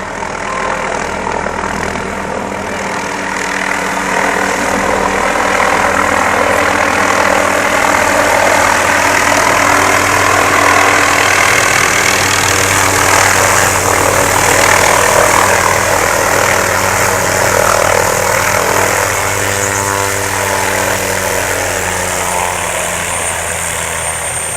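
Helicopter's engine and rotor blades running as it comes in to land, growing louder to a peak about halfway through and easing off slightly toward the end.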